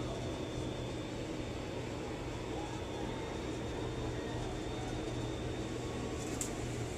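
Steady low hum and hiss of an office room, with the din of a large street crowd muffled behind closed window glass. A single sharp click about six and a half seconds in.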